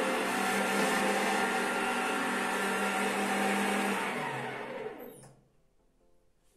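Electric meat grinder fitted with a sausage-stuffing tube, running steadily as meat is pushed through into the casing. About four seconds in the motor is switched off and runs down, falling in pitch to a stop.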